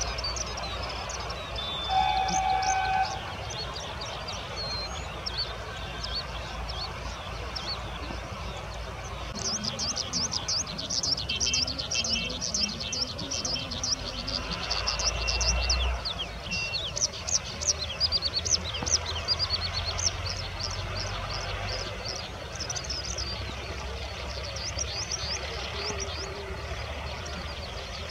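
Oriental skylark calling: rapid, high chirps in quick runs, thickest through the middle of the stretch. A short steady tone is heard about two seconds in, and a low rumble runs underneath.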